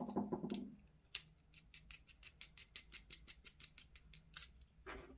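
Hand hex driver winding small 3 mm Allen bolts into an airsoft gearbox's motor plate: a quick run of light, even clicks, about five a second, with a couple of dull knocks near the end.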